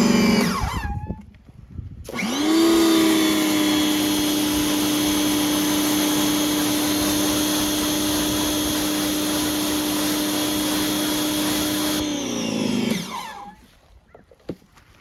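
Pressure washer feeding a surface cleaner that binds up instead of spinning. A run winds down in the first second; about two seconds in the motor spins up with a rising whine and a loud hiss of spray, runs steadily for about ten seconds, then winds down with a falling pitch.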